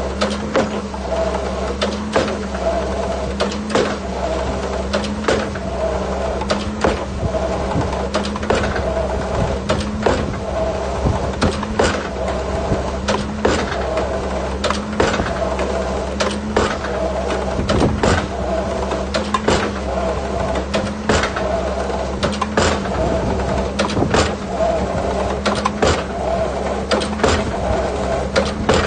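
Excavator engine running steadily, with frequent irregular knocks and clanks from the piling work.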